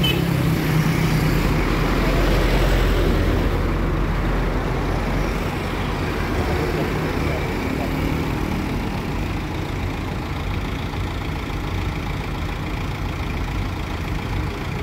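Mitsubishi Canter light truck's diesel engine idling steadily, a little louder in the first few seconds.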